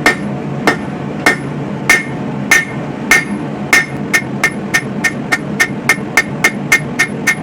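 A 3-pound hand hammer beats hot coil-spring steel on an anvil, flattening out the knife blade, and each blow rings. The blows come steadily about every 0.6 s, then quicken to about four a second about four seconds in. A steady low noise runs underneath.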